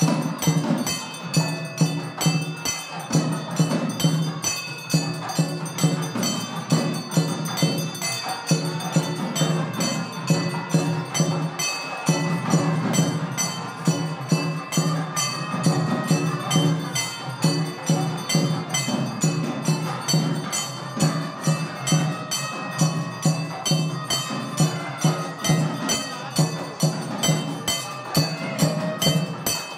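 Devotional music with a steady beat of regular percussive strikes, about two a second, over a held low drone.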